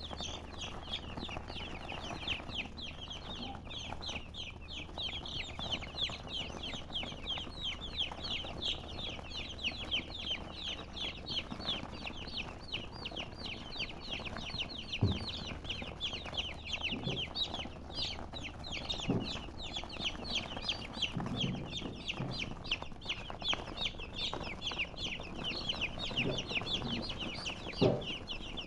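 Chickens chirping continuously in a dense chorus of fast, high, overlapping peeps, over a low steady hum. A few short low knocks come now and then.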